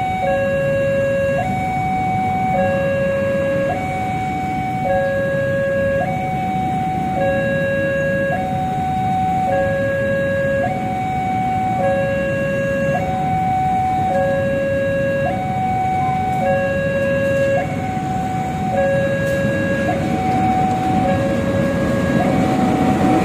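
Railway level-crossing warning alarm sounding: an electronic two-tone signal alternating a lower and a higher tone, each held about a second, over steady traffic noise. Near the end the sound of a CC201 diesel-electric locomotive grows louder as it draws alongside.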